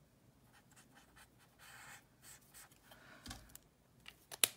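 Marker pen stroking on paper, soft scratchy strokes as it is drawn around stamped letters. Near the end a dull knock and a few sharp clicks as the pen is handled on the craft mat.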